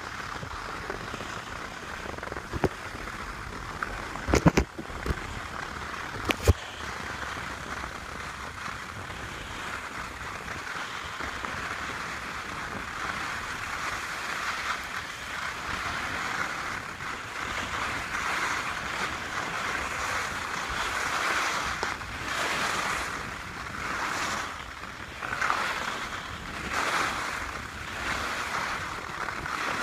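Skis sliding and scraping over packed snow: a steady hiss that grows stronger and, in the last several seconds, swells and fades over and over. A few sharp knocks come about four and six seconds in.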